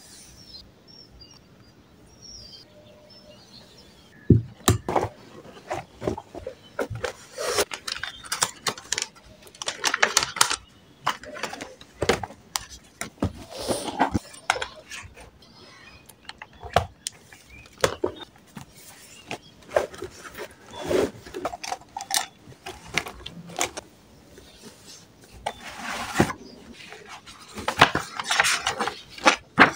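Study papers, notebooks and a plastic file folder being handled and packed into a handbag: scattered clicks and knocks with stretches of rustling paper, including pages of a notebook being flipped near the end.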